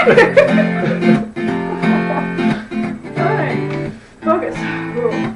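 Acoustic guitar strummed in held chords that change every second or so, with a short break about four seconds in.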